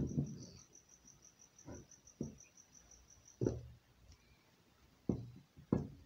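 A few soft knocks and taps of hands handling a bicycle wheel hub and its spokes on a wooden table. Through the first half a cricket chirps high and fast in the background, then stops.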